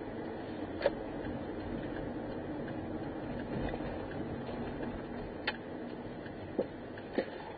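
Steady road and engine noise heard inside a moving car, with a few sharp, irregularly spaced clicks: one about a second in, one midway, and two near the end.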